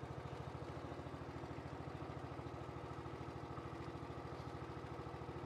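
Small wooden river boat's engine running steadily from aboard, with an even, rapid pulsing beat.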